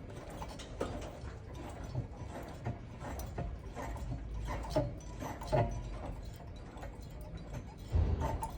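Mitsubishi Outlander PHEV rocked up and down by hand while held on its mechanical handbrake: irregular creaks and knocks from the car's body and running gear, several a few seconds apart and one louder thump near the end.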